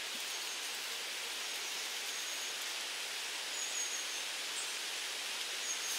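Quiet summer forest ambience: a steady high hiss, with four faint, brief, high thin whistles scattered through it.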